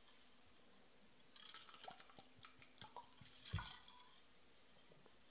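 Near silence with faint scattered taps and rustles starting about a second in, and a slightly louder knock a little past halfway: hands handling trading cards on a cloth-covered tabletop.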